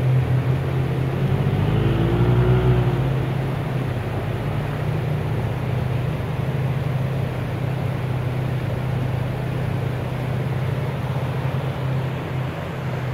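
Can-Am Maverick X3 X RS side-by-side's turbocharged three-cylinder engine idling as a steady low drone, over the rush of a flooded creek. About two seconds in, a fainter engine's pitch rises and falls briefly as another side-by-side works through the water.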